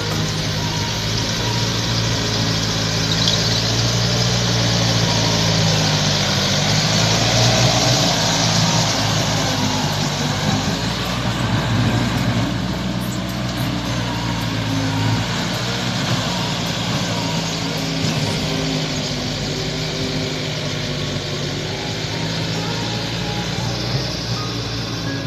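Tractor diesel engine running steadily under load while it pulls a rotary tiller through a rice paddy.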